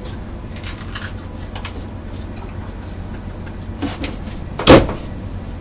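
A few faint clicks and knocks of rummaging, then one loud, sharp knock a little before the end, typical of a kitchen cabinet door being shut, over a steady low hum.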